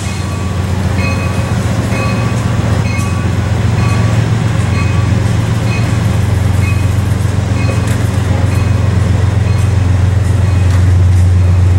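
Passenger train pulling out, its bilevel cars rolling past with a steady low diesel drone from the GE Dash 8-32BWH locomotive pushing at the rear, growing louder as it comes nearer. A faint tone repeats about once a second.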